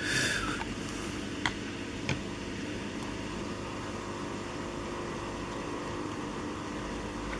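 A steady low hum runs underneath, with a few small sharp clicks of a plastic figure and its stand being handled, the clearest about a second and a half and two seconds in.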